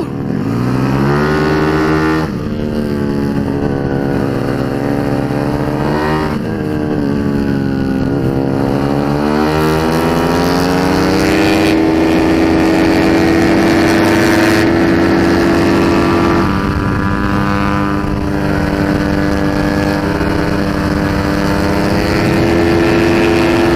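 Race-tuned Yamaha Mio scooter engine (a 230cc four-valve build) running hard on track, heard onboard with wind rush. The revs rise after a dip at the start, fall away briefly twice into corners, then hold high and steady on the straight for the last half.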